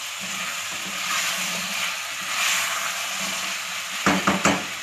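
Cubed potatoes with cumin seeds sizzling steadily as they fry in oil in a pot and are stirred with a wooden spoon, at the stage of frying them with the spices. A few louder scrapes come near the end.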